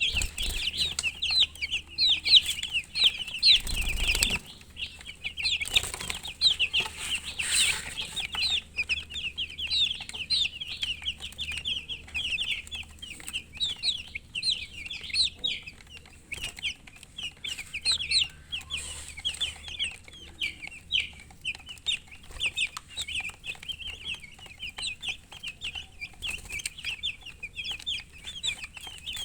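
A group of domestic chicks peeping without pause: a dense stream of short high-pitched chirps. A brief, louder noise cuts in just before four seconds in.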